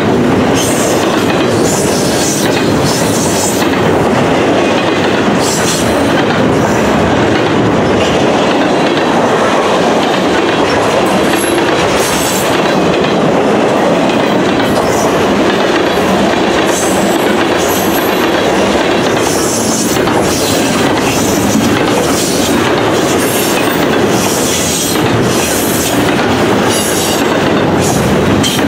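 Freight cars of a long double-stack intermodal train rolling past close by. Steel wheels make a steady rumble on the rail, with repeated sharp clacks as the wheelsets cross rail joints.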